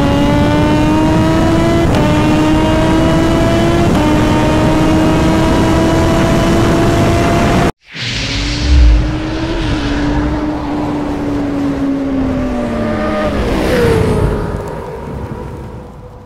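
Kawasaki Z H2 engine pulling hard at high speed, its note climbing steadily with two quick upshifts, under heavy wind rush. After a sudden cut the engine holds speed, then its note falls away as the rider rolls off and it fades, with a loud low thump about nine seconds in.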